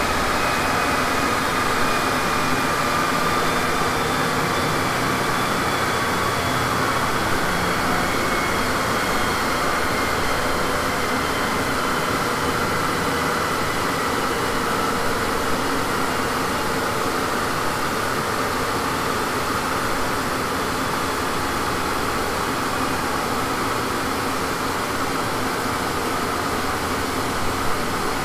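A car's wheels and drivetrain spinning down on chassis dynamometer rollers after a power run, a steady rushing noise with a faint whine that falls slowly in pitch as the speed drops.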